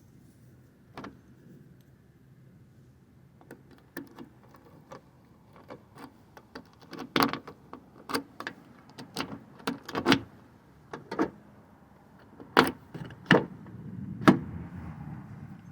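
Irregular clicks and knocks of things being handled, sparse at first, then coming thick and louder from about the middle, with a few sharp knocks near the end.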